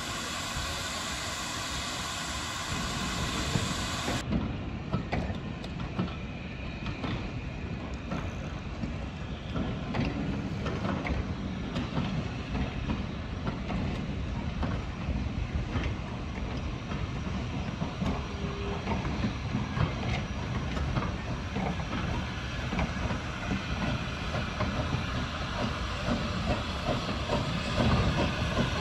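Background music for the first four seconds, then a steam train running past: the coaches rolling with a clickety-clack of wheels over rail joints and the hiss of the saddle-tank steam locomotive, louder near the end as the engine draws close.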